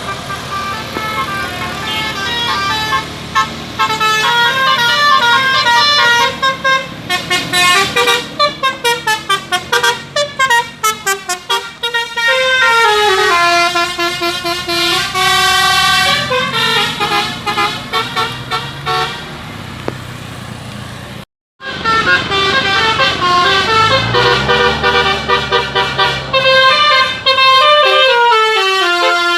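Multi-trumpet 'telolet' vehicle horn playing the basuri melody, quick stepped notes in runs that climb and fall. It cuts off abruptly about two-thirds of the way through, and then another horn tune of the same kind starts.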